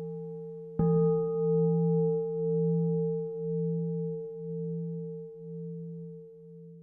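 Singing bowl struck once about a second in, while the ring of an earlier strike is still dying away. It rings on with a slow, pulsing wobble in its low tone and fades gradually.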